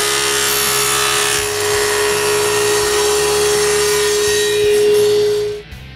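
Table saw with a cheap blade cutting through a T-track: a steady saw noise with a steady hum, cutting off suddenly near the end.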